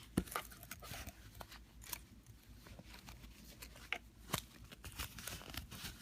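Handling noise from a velvet jewelry pouch being opened and a small bag charm taken out of it: soft rustling with scattered small clicks, the sharpest just after the start and about four and a half seconds in.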